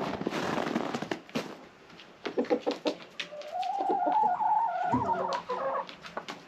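A rooster crows once: a drawn-out call of about two and a half seconds that rises and then holds, starting about three seconds in. Short crackling clicks come before it.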